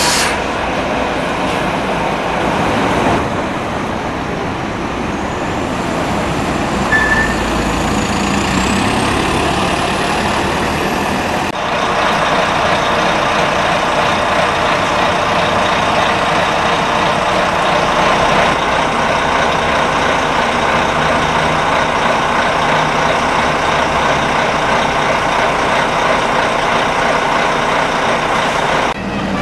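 Bus engines running with road traffic noise around them. In the first half a faint high whine climbs steadily over several seconds. About twelve seconds in, the sound changes abruptly to a denser, steadier engine noise.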